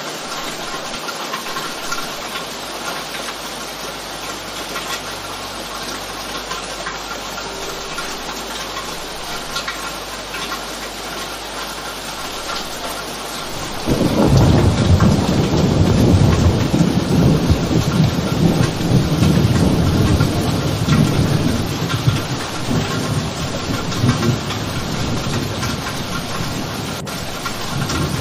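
Steady rain, with a long low roll of thunder that comes in suddenly about halfway through and slowly dies away.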